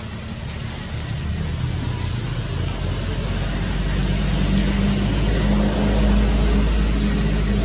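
A motor vehicle's engine running, a low hum that grows steadily louder.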